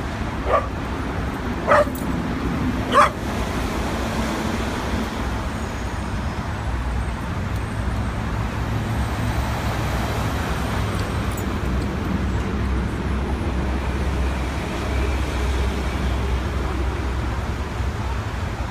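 Dogs giving three short barks or yips in the first three seconds, over steady city traffic noise with a low rumble that grows heavier in the middle.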